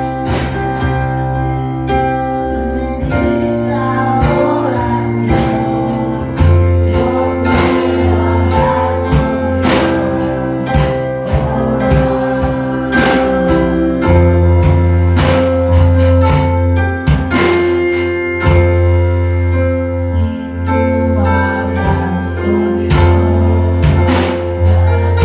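Live gospel worship music: an electric keyboard and drums keep a steady beat under a voice singing into a microphone, played over the church's loudspeakers.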